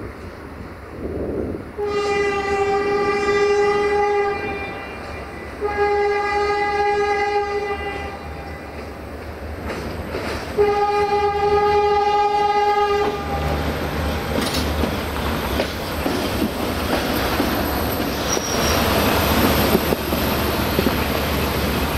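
LDH1360 diesel-hydraulic shunting locomotive sounding its horn in three long blasts of one steady tone, each about two seconds. Its diesel engine and wheels then rumble loudly as it passes close beneath.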